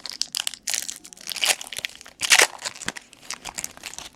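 Trading card pack wrappers crinkling and crunching as packs are handled and torn open, a dense crackle with several louder crunches.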